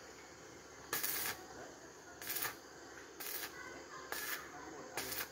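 Arc welding in short tack bursts, five in all about a second apart, each a brief hiss.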